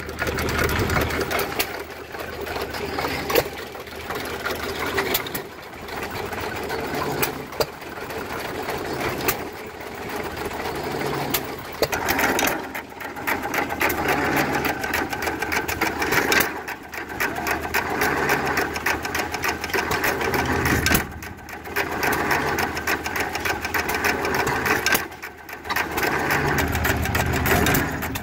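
Old hit-and-miss gas engines running with a fast, steady mechanical clatter. In the second half a low beat recurs about every two seconds, as a hopper-cooled engine works a pitcher pump.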